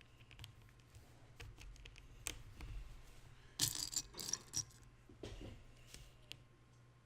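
Small plastic Lego bricks clicking and rattling as they are handled. There are scattered single clicks, with a brief louder burst of rattling clatter a little past halfway.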